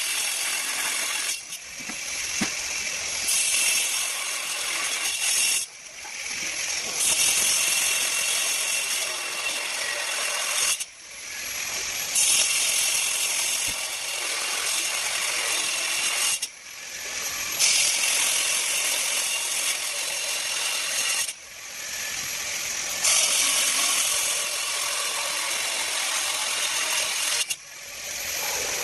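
A 4-inch angle grinder cutting through a 22 mm steel bar: a steady high-pitched whine and grinding rasp. It drops away briefly about every five seconds, then builds back up.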